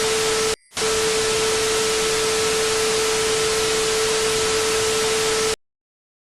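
Loud static hiss with a steady humming tone running through it, the kind of distorted noise used in a mock emergency-alert broadcast. It drops out for a split second about half a second in, then cuts off suddenly about five and a half seconds in, leaving dead silence.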